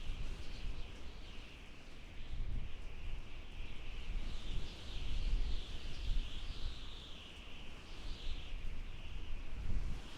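Howling wind: a high whistle that wavers up and down in pitch over a low, gusty rumble that swells and eases.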